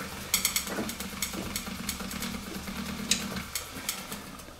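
Water vortex generator running: its small electric motor hums steadily while the spinning whirl-tube rotor churns and spatters the water with irregular ticks. The hum cuts off about three and a half seconds in as the motor is switched off.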